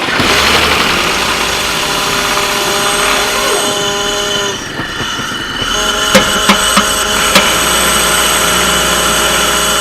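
BMW M52TU 2.8-litre double-VANOS straight-six, newly swapped into an E36 Compact, running loud just after firing up once the fuel pump relay wiring was put right. Its note dips and changes pitch briefly about halfway through, then settles again, with a few sharp clicks soon after.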